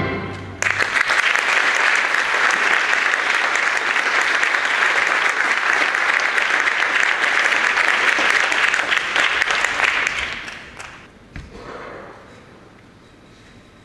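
Theatre audience applauding, starting about half a second in just after the orchestral music stops. It holds steady for about ten seconds, then dies away.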